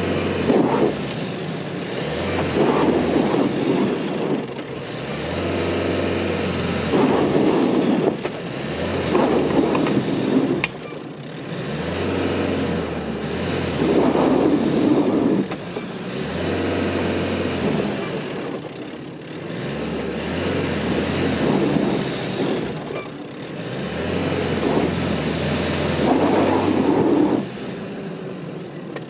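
Nissan Navara pickup's engine revved in repeated surges a few seconds apart, its rear tyre spinning in loose soil and digging itself deeper into a hole: the truck is stuck.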